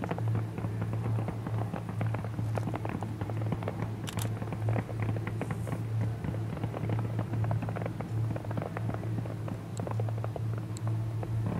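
Fireworks going off in a dense, irregular run of small pops and crackles, over a steady low hum.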